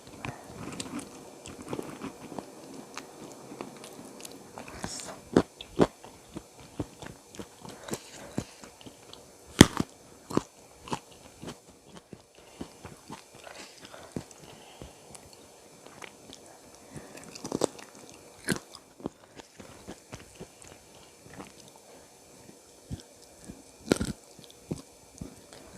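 Close-miked eating of spicy chicken feet and raw vegetables: steady chewing and biting with irregular sharp crunches, the loudest about ten seconds in.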